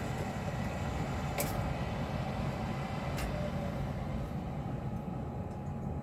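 Steady low mechanical hum and rumble of running equipment, with two short sharp clicks, one about a second and a half in and another about three seconds in.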